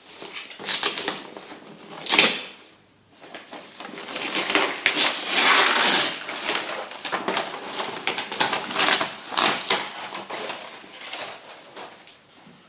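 Gift wrapping paper being torn open and crinkled: a string of tearing rips and crackles, with a sharp loud rip about two seconds in and a long dense tear around the middle.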